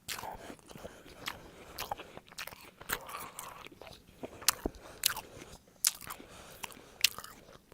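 Chewing on a juicy Golden Delicious apple: a dozen or so sharp, wet crunches and mouth smacks at uneven intervals.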